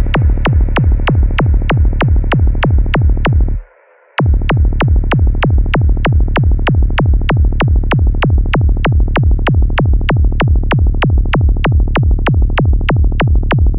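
Fast electronic dance track at 193 bpm: a heavy kick drum hits about three times a second under a muffled synth wash that slowly grows duller. The music drops out for about half a second nearly four seconds in, then the kick comes straight back.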